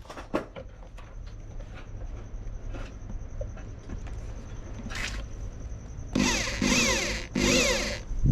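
A few light handling clicks, then a power drill running in three short bursts about two-thirds of the way in, its motor whine sweeping up and down in pitch.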